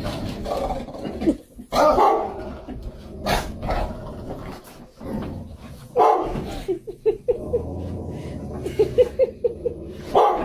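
A dog barking, with runs of quick short yaps in between.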